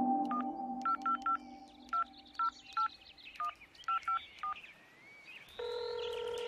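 Touch-tone telephone keypad being dialed: about a dozen short two-tone beeps at an uneven pace, with faint warbling chirps behind them. A steady tone comes on about two-thirds of the way in and holds for about two seconds.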